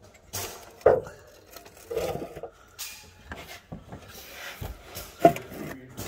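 Hard plastic clunks and rubbing as a coolant reservoir is handled and worked into its mount on the engine: a few sharp knocks, the loudest about a second in and another about five seconds in.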